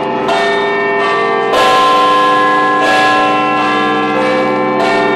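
Large tower bells ringing: four strikes about a second or two apart, each ringing on and overlapping the last.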